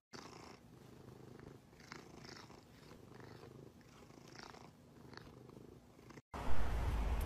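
A domestic cat purring steadily while it is scratched under the chin, a sign of contentment. Near the end the purring cuts off and a louder, noisy low rumble takes over.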